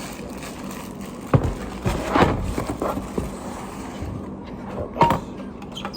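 Hands handling a product box and its packaging: a few knocks, clicks and scrapes, the sharpest about one and a half seconds in, a cluster around two to three seconds in, and another about five seconds in, over a faint steady hum.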